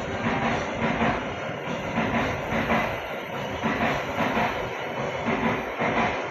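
Passing train, its wheels clacking over the rail joints in an even rhythm of about two beats a second.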